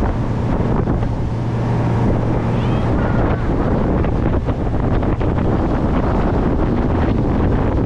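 Boat engine running steadily with a constant low hum, while wind buffets the microphone as the boat moves.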